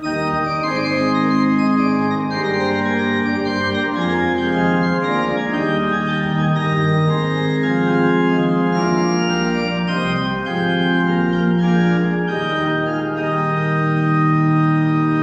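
Church organ playing alone, sustained chords that move slowly from one to the next.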